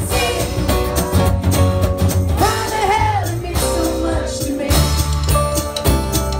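Live acoustic band playing: a woman singing over strummed acoustic guitar, with ukulele and drums with cymbals.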